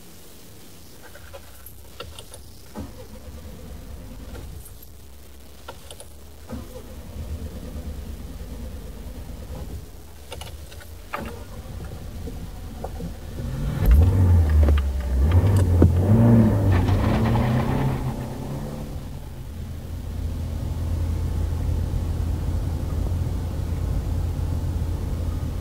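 Car engine, in a radio-play sound effect: a few scattered clicks and knocks over a low hum, then about halfway through the engine surges loudly and revs up, rising in pitch, before settling into a steady drone as the car drives on.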